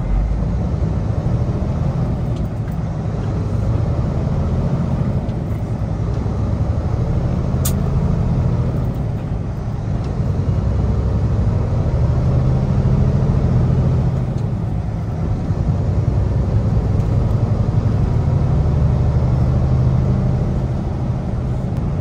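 Semi-truck engine and road noise heard inside the cab while cruising: a steady low drone that slowly swells and eases in loudness. There is a single brief click about eight seconds in.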